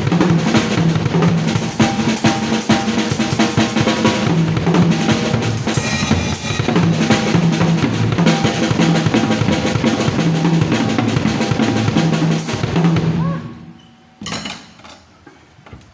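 Drum kit played in a fast run of bass drum, snare and rolls, stopping about thirteen and a half seconds in, followed by one short hit.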